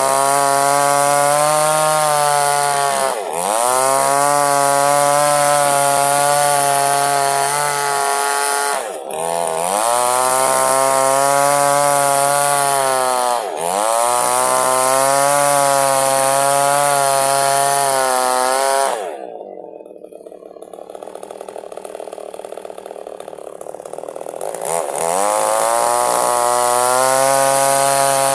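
Small two-stroke chainsaw at full throttle cutting lengthwise through a log to split it in two. The engine note sags and recovers three times under the load, then drops to idle for several seconds before the saw revs back up into the cut.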